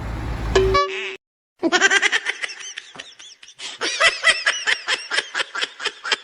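A brief tone, a moment of dead silence, then high-pitched, rapid laughter in quick repeated pulses from about one and a half seconds in.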